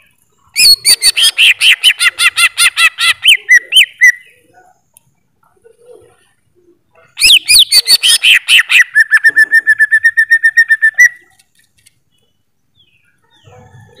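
Cucak ijo (green leafbird) singing two loud phrases of rapid, sliding whistled notes. The first starts about half a second in and lasts some three and a half seconds. The second comes about seven seconds in and ends in a fast, even trill, with short pauses between the phrases.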